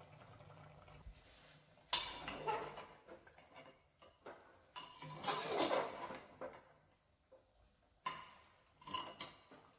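Metal spoon stirring thick chicken curry in a pressure cooker, scraping and knocking against the pot in short bursts: one about two seconds in, a longer one around five to six seconds in, and a few near the end.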